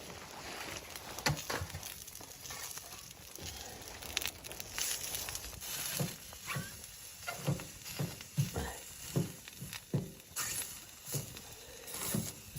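Irregular short knocks and rustling, a few of them sharper than the rest.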